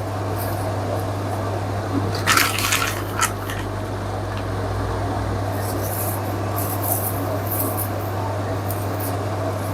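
Thick ogbono soup squelching and popping in the pot over a steady low hum, with a brief clatter of a few quick knocks about two seconds in.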